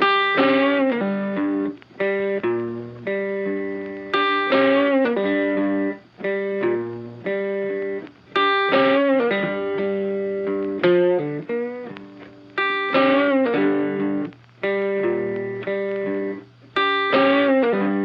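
Background music: plucked guitar phrases, each note struck and fading, repeating about every four seconds.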